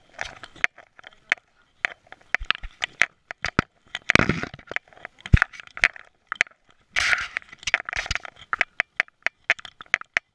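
Rattle and rub of a camera strapped to a moving dog's neck: a rapid, irregular run of sharp clicks and knocks, with two longer rustling scrapes about four and seven seconds in.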